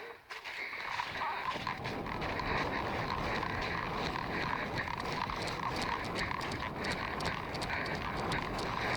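Footsteps crunching through brush and leaves with gear rustling, picked up close by a helmet-mounted phone microphone, with a steady rumble of movement under many small crackles.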